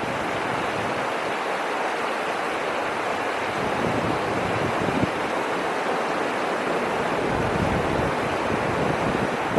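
Steady, even rushing noise, with a single sharp tap about five seconds in.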